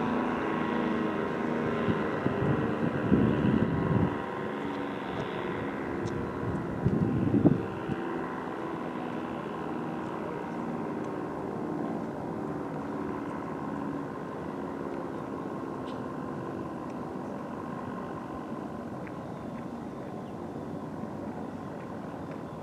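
ACA Banshee 115 tornado siren winding down: its steady tones sink slowly in pitch and fade. Two short bursts of low rumble come about three and seven seconds in.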